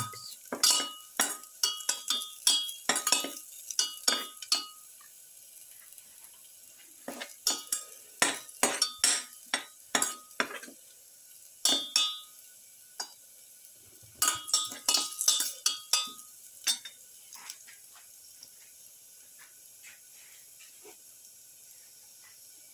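Perforated metal spatula scraping and clanking against a steel pan while stirring sautéing garlic cloves and shallots, in three bouts of quick strokes with a ringing metallic clink, then only a faint sizzle in the last few seconds.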